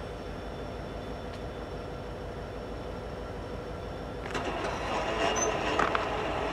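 Railroad crossing timing out: about four seconds in, the Invensys Rail gate mechanisms start raising the gate arms, and a steady low hum gives way to a louder rush of mechanical noise with a few sharp clicks.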